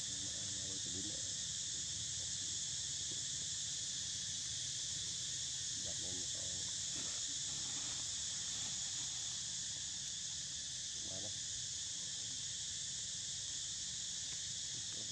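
Steady, unbroken high-pitched drone of an insect chorus, with a few faint brief pitched sounds about six and eleven seconds in.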